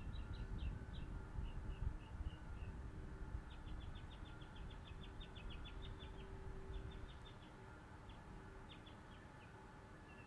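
Small bird chirping in short high notes, with a quick run of rapid chirps a few seconds in, over a low rumble that fades away near the end.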